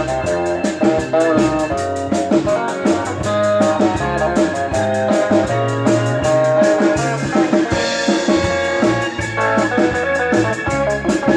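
A band playing: guitar over a drum kit, with a steady, fast beat of cymbal strokes.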